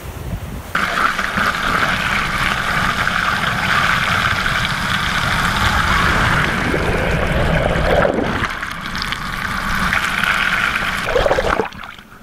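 Water rushing past a camera running underwater along a moving sailboat's hull: a loud, steady hiss that starts abruptly about a second in and drops away suddenly near the end.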